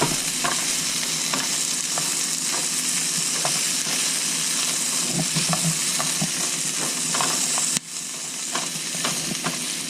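Sliced prickly pear cactus pads (nopales) sizzling in a frying pan, with a utensil stirring them and clicking against the pan; the sizzle briefly drops out near the end, then carries on a little quieter. The pads are cooking down to the soft stage at which they are ready.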